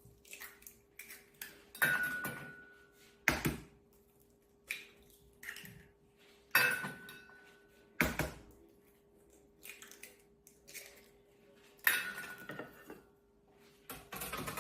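Eggs being cracked against the rim of a mixing bowl: three sharp taps that each leave the bowl ringing briefly, with other knocks and clinks of shells and dishes between them. A faint steady hum runs underneath.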